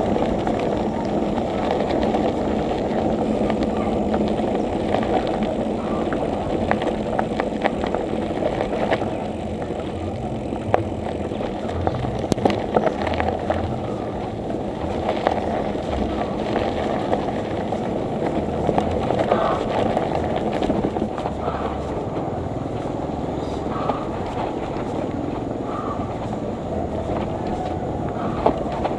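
Steady wind and road noise from a moving bicycle, with scattered clicks and knocks.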